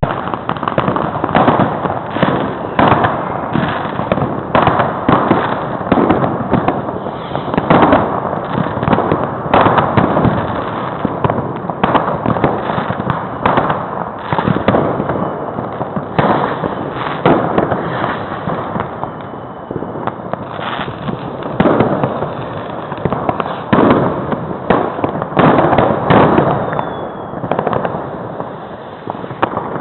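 New Year's Eve fireworks and firecrackers going off in a dense, continuous barrage of overlapping bangs and crackles, with no let-up.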